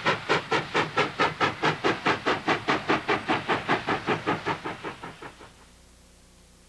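Steam locomotive exhaust beating fast and evenly, about six chuffs a second, fading away about five seconds in.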